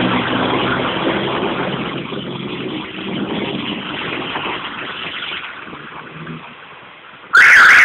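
A truck's engine running as it drives past through a flooded street, its wheels throwing up water in a steady spray, slowly fading away. Near the end a loud, high-pitched sound cuts in suddenly.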